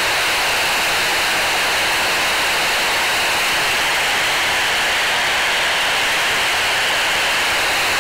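FM radio static: a Baofeng UV-5R handheld's receiver hissing steadily while listening to the SO-50 satellite downlink. No station comes through, with the satellite barely 1° above the horizon.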